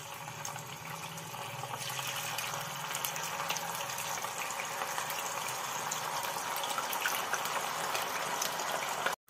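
Hot oil sizzling and crackling as potato-wrapped chicken pieces are dropped in one by one to deep-fry, growing a little louder over the first couple of seconds as more pieces go in, then holding steady. It cuts off abruptly near the end.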